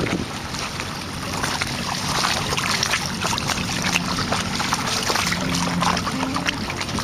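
Water splashing and gurgling along the inflatable hull and outrigger float of a sailing kayak moving through light chop, a steady crackling wash. Faint music sits underneath.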